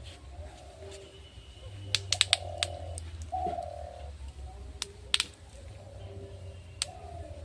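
Low bird calls, a few short held cooing notes, with several sharp clicks scattered through, over a steady low hum.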